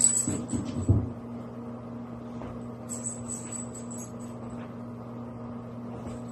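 Steady low hum of room machinery, with a couple of soft knocks in the first second and faint high clinks about three to four seconds in as two dogs move about on a rubber floor.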